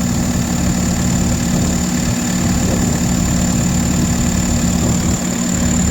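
Case 850M's diesel engine running steadily at idle with the air-conditioning compressor engaged, a thin steady high tone over the drone.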